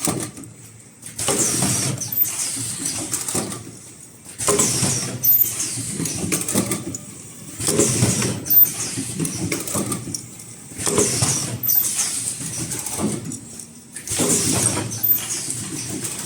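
Automatic cup-shaped mask headband welding machine running continuously. Its noisy working cycle repeats about every three seconds, each louder stretch followed by a brief quieter pause, with short high-pitched tones recurring through it.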